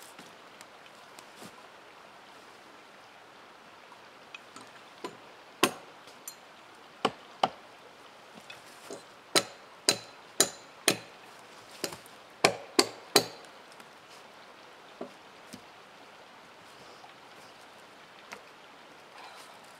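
Dead wood being knocked and struck, about a dozen sharp, irregular knocks over several seconds in the middle, with a few fainter ones before and after.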